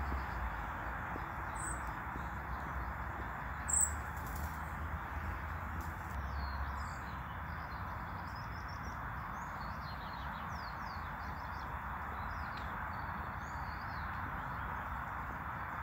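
Small songbirds chirping and singing over a steady outdoor background hiss, with one short, louder chirp about four seconds in and a busier run of song phrases in the second half.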